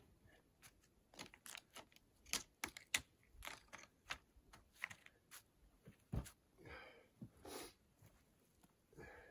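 Faint, irregular clicks and knocks of stones being shifted and wedged by hand, with a dull thud about six seconds in and two short scrapes after it. Footsteps on dry forest litter near the end.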